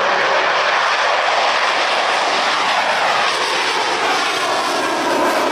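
Military jet engines, loud and steady. The sound sweeps down in pitch about three seconds in as a jet passes.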